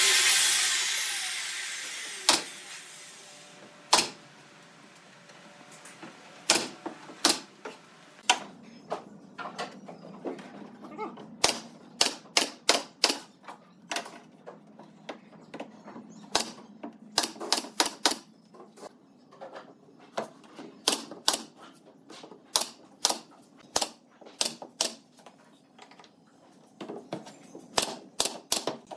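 A loud noise fades away over the first two seconds. Then come sharp taps and clicks, single or in quick runs of two to four, irregularly spaced.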